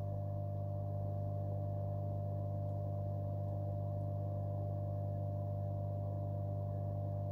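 A steady, unchanging low hum with a fainter higher tone held above it.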